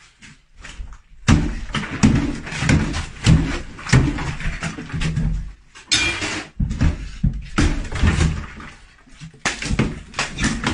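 A run of thumps and knocks, and near the end a watermelon smashed down onto a table with wet, splattering bangs.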